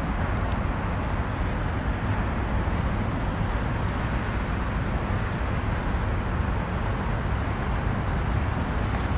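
Steady rumble of road traffic with no single vehicle standing out, heaviest in the low end.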